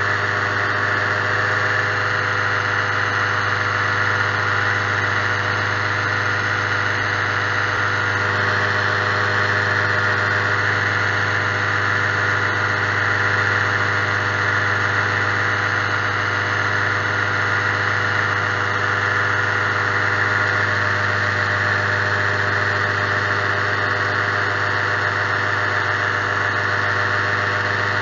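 Small aircraft engine and propeller running steadily in flight, heard from on board: an unchanging drone with no change in power.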